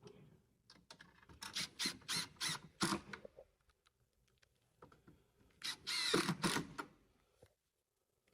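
Cordless driver driving button-head wood screws, in two runs of about a second and a half each, the second starting about four seconds after the first.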